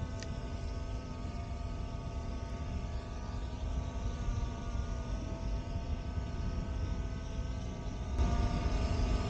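Skydio 2 quadcopter drone hovering close overhead: a steady propeller hum made of several held tones over a low rumble, a little louder near the end.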